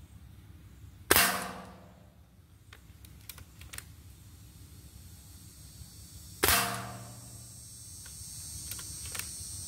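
Two shots from a .22 Gamo Swarm Whisper break-barrel air rifle, about five seconds apart. Each is a sharp crack, with the pellet's hit on a metal target ringing briefly after it. Lighter clicks follow each shot as the rifle is cocked for the next pellet.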